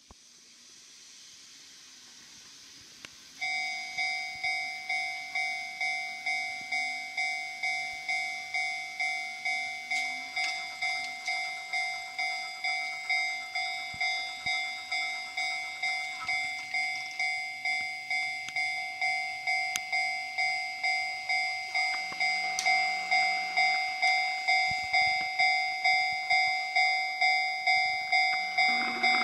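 Railway level-crossing warning bell that starts about three seconds in and rings on steadily at about one and a half strikes a second, each strike decaying before the next, warning of an approaching train. Near the end the running noise of the arriving Shin-Keisei 8800-series electric train comes in under it.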